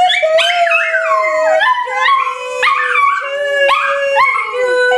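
A young Chihuahua-mix dog howls in a string of high, wavering calls that rise and fall and restart about once a second. A woman's long, steady sung note runs underneath and drops lower about two seconds in.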